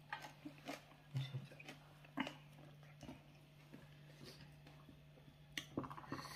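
Quiet sounds of people eating by hand: scattered soft clicks and taps of chewing and fingers tearing injera, with a quick run of clicks near the end, over a steady low hum.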